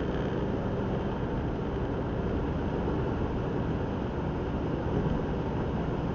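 Car cruising along a country road, heard from inside the cabin: a steady blend of engine hum and tyre-and-road noise. A faint engine tone fades out about a second in.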